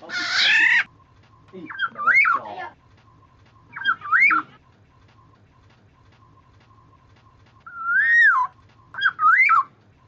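Black-naped oriole (kepodang) calling: one harsh, rasping call at the start, then four short fluting whistles that swoop up and down in pitch, a second or two apart.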